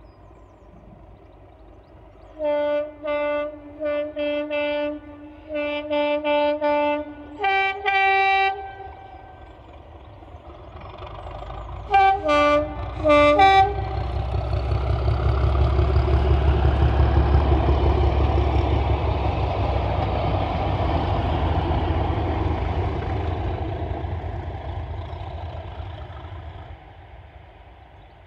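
Two-tone horns of Class 37 diesel locomotives sounding a rhythmic string of short and long blasts as a football salute, with a switch to the higher tone near the end of the first run and three quick blasts a few seconds later. The locomotives' English Electric V12 diesel engines and the train's wheels then pass loudly and fade away.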